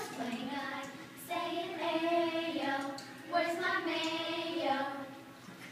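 A child singing a tune in long held notes, in two phrases with a short break about three seconds in.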